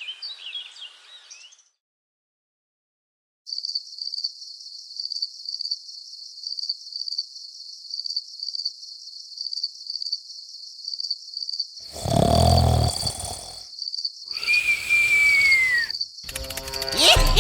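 Crickets chirping in a steady, evenly pulsed high trill after a brief silence. Near the end the chirping is cut into by a loud, deep burst and then a hiss with a single falling whistle.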